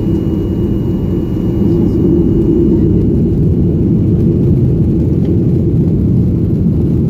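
Cabin noise of a Boeing 737 rolling on the runway: a steady jet-engine rumble and roar that gets louder about two seconds in.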